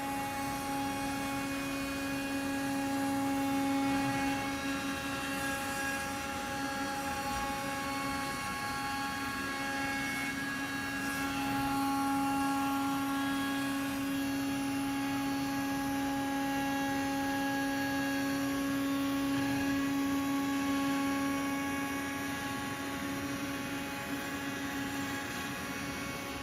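CNC router spindle running steadily, its bit cutting a juice groove into the back of a maple cutting board: a steady whine with a few higher overtones, swelling slightly in loudness now and then.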